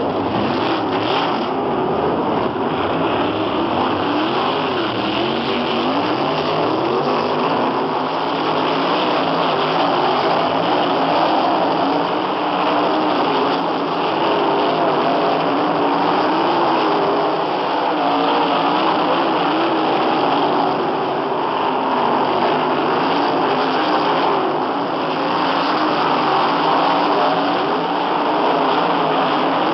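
Several dirt-track sprint cars' V8 engines running at racing speed in a continuous loud drone. The pitch wavers up and down as the cars pass and work the throttle.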